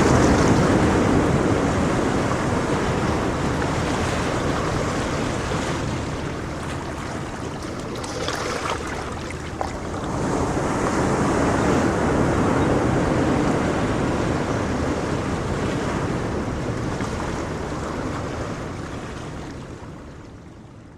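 Ocean surf: waves breaking and washing in a continuous rush of noise, swelling loudest at the start and again about halfway through, then fading out near the end.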